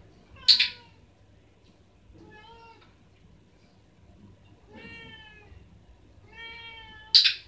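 A domestic cat meowing several times during a training session, and twice a sharp double click from a handheld training clicker, loud and brief, about half a second in and again near the end, straight after a meow.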